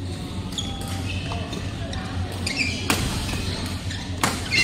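Badminton rackets striking the shuttlecock during a doubles rally: two sharp cracks, about three and a bit over four seconds in. Shoes squeak on the court mat, over a steady low hum.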